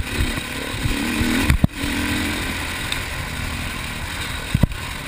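Enduro motorcycle engine running under throttle on a rough dirt trail, with wind rush and rattling from the bumpy ride; the engine tone is strongest in the first two seconds. Two sharp knocks, about one and a half seconds in and near the end, as the bike jolts over the ground.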